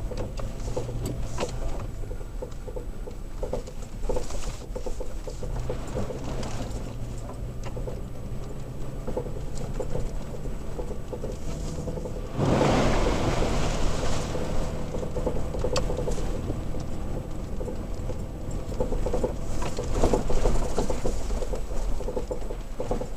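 Toyota Tacoma pickup driving slowly off road, heard from inside the cab: a steady low engine hum under constant small clicks and rattles as the truck jolts over the rough track. About twelve and a half seconds in, a louder rushing noise comes in and fades over a couple of seconds.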